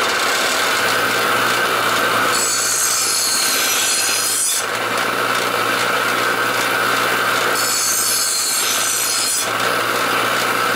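Bench grinder running with a steady motor hum while a steel lawnmower blade is ground on its wheel. The harsh grinding swells twice, each time for about two seconds, as the blade's underside is held flat against the wheel to grind off chips.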